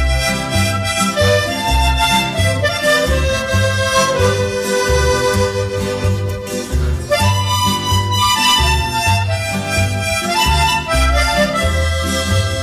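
Instrumental background music: a held melody line over a regularly pulsing bass.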